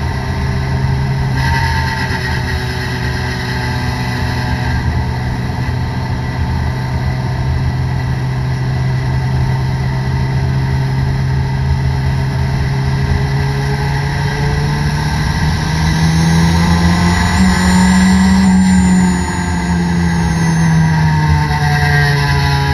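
Toyota Corolla DX race car's engine heard from inside the cabin, running at a fairly steady speed. Its pitch climbs about two-thirds of the way in, then drops back a few seconds later, with a faint high whine rising and falling alongside.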